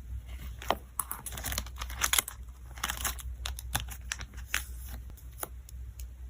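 Photocard packing materials being handled: crinkling and rustling with quick taps and clicks, thinning out after about five and a half seconds.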